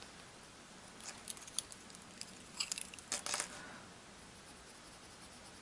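Coloured pencil scratching on Colourfix Smooth pastel paper in short, faint strokes, in two brief clusters about a second and three seconds in, as fine detail is drawn into an eye.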